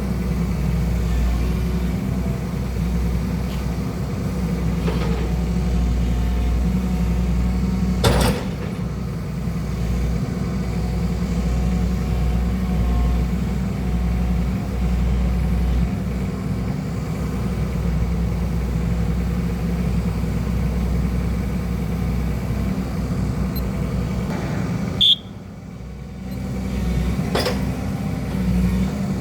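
Excavator's diesel engine running steadily under working load, with two sharp knocks, one about eight seconds in and one near the end, and a brief dip in the engine sound about three-quarters of the way through.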